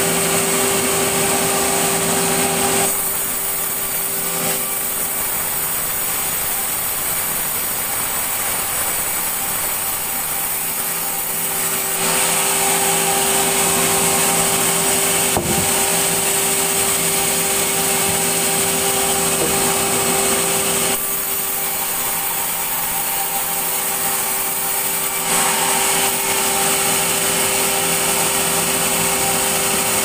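Log band sawmill running with a steady hum and whine as its band saw blade cuts lengthwise through a log to slice off a board. The sound changes twice for several seconds, from about three to twelve seconds in and again from about twenty-one to twenty-five seconds in, with one sharp knock about halfway.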